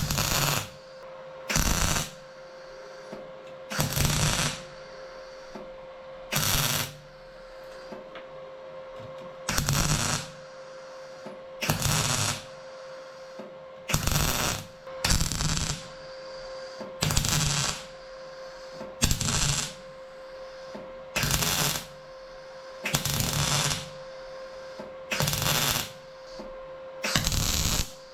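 Welder laying short tack or stitch welds on car-body sheet steel while patching new metal into a rusted BMW E36 rear panel: about fifteen crackling bursts, each under a second, one every second or two. A steady hum runs underneath.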